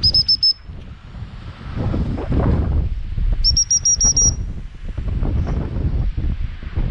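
Two quick strings of short, high pips blown on a gundog whistle, the first right at the start and a longer one about three and a half seconds in, to signal the working dog.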